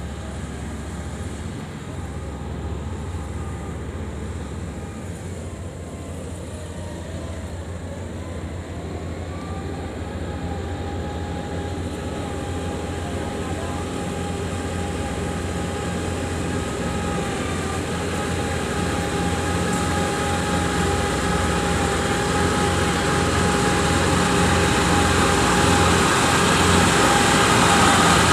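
Engine of a small tracked rice-hauling tractor running steadily as the machine drives through the rice field, growing louder as it approaches.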